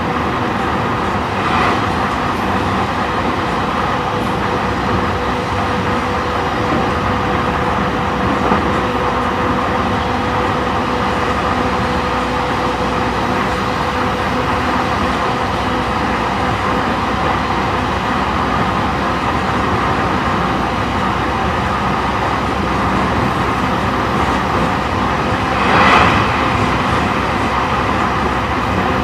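Running sound of a JR E531 series electric multiple unit at steady speed, heard inside its motor car: a steady rumble of wheels on rail with a steady tone over it. The noise swells briefly about a second and a half in and again near the end.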